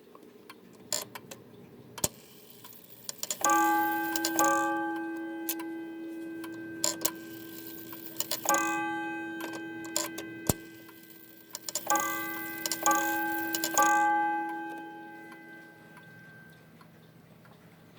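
1910 Gustav Becker weight-driven Vienna wall clock striking the hour on its gong through its count-wheel strike train: hammer blows in three clusters, each ringing out and fading, over the steady tick of the escapement.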